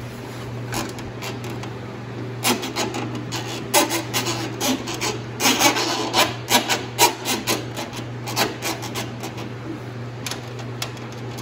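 Cable and a wire hook being worked through a hole in a Jeep Wrangler's body panel: irregular scraping, rubbing and clicking against plastic and metal, busiest through the middle and fading near the end. A steady low hum sits underneath.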